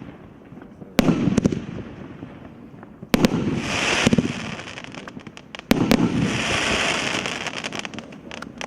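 A 25-shot, 50 mm fireworks cake firing: three loud bangs a little over two seconds apart, each followed by a crackling tail that dies away over a second or two.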